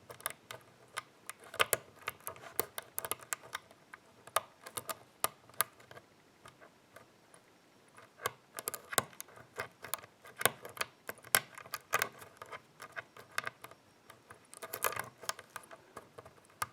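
Lock pick and tension wrench working the pins of a small Japanese sliding-door lock: light, irregular metallic clicks and taps, coming in quick clusters with short pauses, as the pins are picked one by one.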